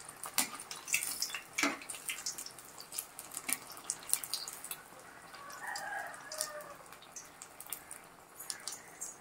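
Egg bajji (batter-coated boiled eggs) deep-frying in hot oil in a pan, with irregular crackling and popping.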